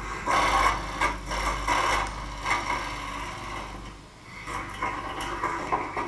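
A relay controller module in a metal case being slid and pushed by hand along a metal DIN rail, making a series of short scrapes and rubs that are strongest in the first two seconds and weaker after.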